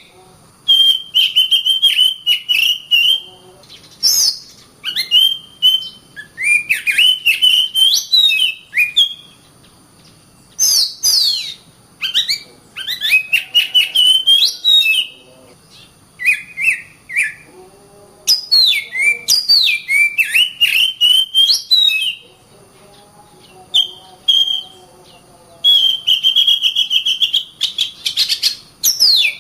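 Oriental magpie-robin in full song: phrases of whistled and sweeping notes mixed with sharp clicking strokes. The song breaks off for short pauses a few times.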